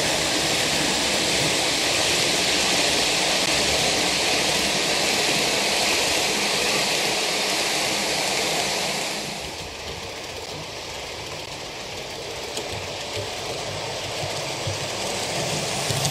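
OO gauge model trains running on the layout: a steady rumble and whirr of wheels on the track and the locomotive motors. It drops quieter about nine seconds in and builds again near the end.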